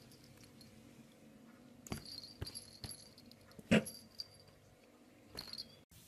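A dog making a few short sounds while a cat paws at it, the loudest a little past halfway, with light clicks between them.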